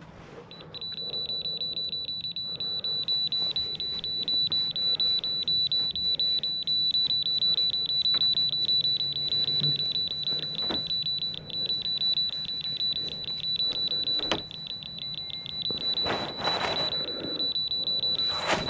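Rapid, continuous electronic beeping, one high beep repeated several times a second. A few sharp knocks sound over it in the second half.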